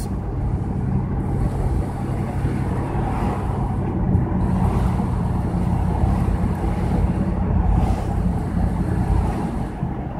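Steady road and engine rumble of a car driving at town speed, heard from inside the cabin.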